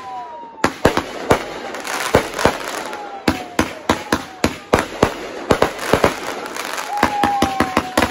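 Consumer aerial fireworks going off overhead: an irregular, rapid run of sharp bangs and crackles, with a few long whistles sliding slowly down in pitch.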